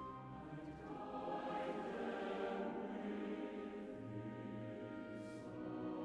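Choral music: a choir singing slow, long-held chords.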